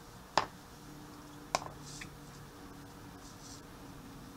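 Plastic spice shaker of dried minced onion being handled and shaken over a roasting pan: two sharp clicks about a second apart, then faint soft rattling as the flakes are shaken out.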